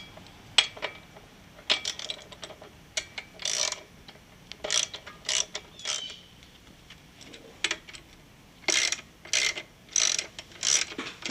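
Socket ratchet wrench being worked in short strokes, each back-swing giving a burst of clicks, while tightening a motorcycle rear shock mounting bolt. The strokes are spaced out at first and come in a quick, even run near the end.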